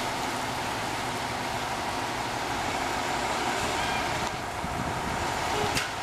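Fire trucks' engines running steadily under an even hiss, with a faint steady tone and a single sharp click near the end.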